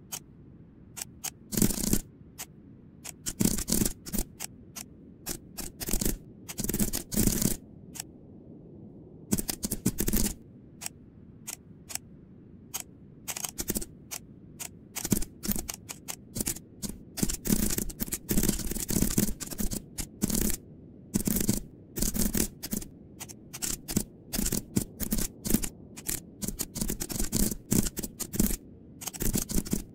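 Computer keyboard typing: quick runs of keystroke clicks in irregular bursts, with short pauses between them.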